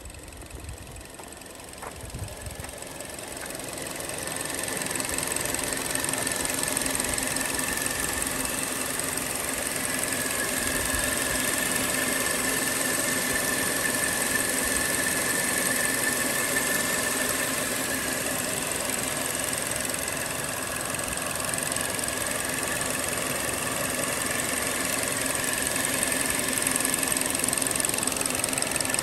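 2022 Hyundai Elantra's four-cylinder engine idling steadily, growing louder over the first few seconds and then holding even.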